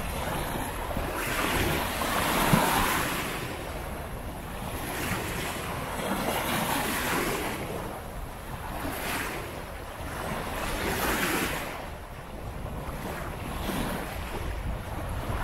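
Sea waves breaking and washing up the shore, swelling and fading again every couple of seconds, with wind rumbling on the microphone.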